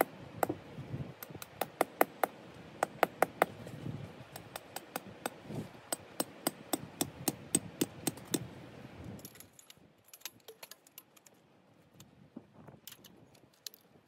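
A hammer striking a metal tent peg into stony ground: a rapid series of sharp metallic taps, about three a second, that stops about nine seconds in, leaving only a few faint clinks.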